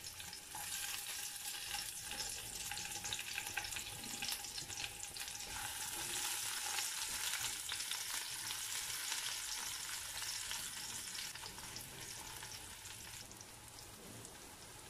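Chopped onion frying in hot oil in a non-stick pan: a steady sizzle full of fine crackles, with the pieces stirred by a silicone spatula. The sizzle dies down toward the end.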